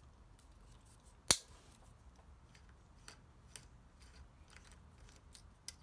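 3 mm Allen key unscrewing the brake-pad retaining pin from a Shimano hydraulic disc brake caliper: one sharp metallic click a little over a second in, then faint scattered ticks of the tool working the small pin.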